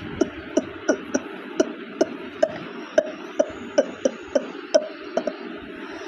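A person with a cold coughing in a rapid run of short, sharp coughs, about two or three a second, over a steady background hiss.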